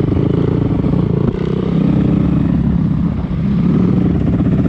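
Enduro dirt bike's engine running at low speed, heard up close from the bike itself, its note rising and falling with the throttle and dipping briefly about a second in and again around three seconds in.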